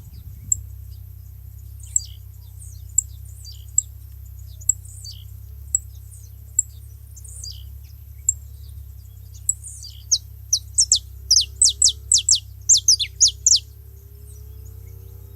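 Saffron finches calling: single sharp high chips about once a second, then about ten seconds in a fast run of a dozen or so loud, descending whistled notes.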